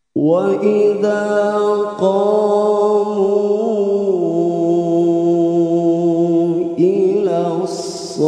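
A male qari reciting the Quran in a slow, melodic style. He comes in sharply after a silent breath pause and holds long, ornamented notes that shift in pitch every couple of seconds.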